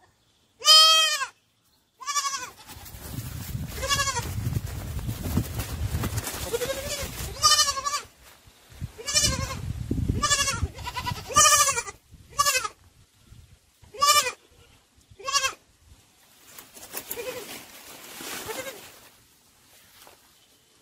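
Sheep and lambs bleating: about eleven short, wavering bleats, some overlapping, at irregular intervals. A low rumble sits underneath for much of the first half.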